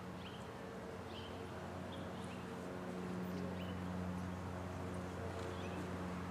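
A steady low hum, with short high bird chirps about once a second.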